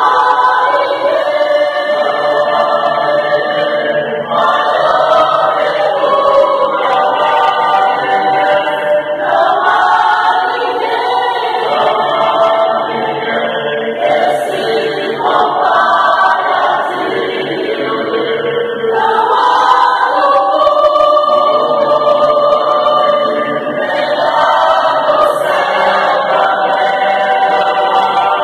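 Mixed church choir of men and women singing a Portuguese gospel hymn in unison-and-parts, in sustained phrases a few seconds long with short breaks between them.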